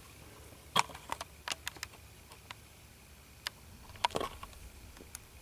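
Irregular light clicks, taps and scrapes of movement in and around a wire sugar glider cage, with a couple of sharper knocks about a second in and about four seconds in.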